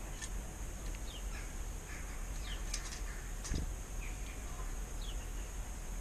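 Small garden birds giving short, falling chirps several times, over a steady high hiss. There are a couple of sharp clicks near the middle and a dull thump about three and a half seconds in.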